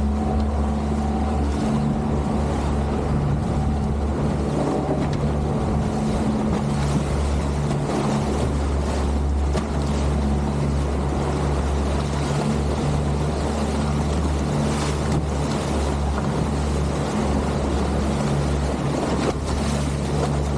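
Motorboat engine running steadily with a constant low hum, over a steady rush of wind and water hiss.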